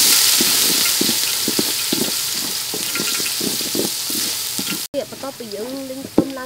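Chopped garlic sizzling in hot oil in a metal pot while a wooden spoon stirs it, knocking and scraping against the pot. The sizzle cuts off suddenly about five seconds in, and a voice follows.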